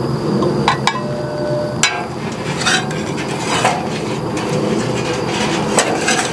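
Metal spatula scraping and clinking across the oiled steel cooktop of a Blackstone griddle as the oil is spread, with a few sharp clicks and a couple of longer scrapes over a steady low background noise.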